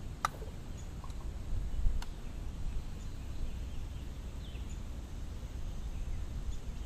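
Open-air ambience on a fishing boat: a steady low rumble, two sharp clicks about a quarter second and two seconds in, and a few faint bird chirps.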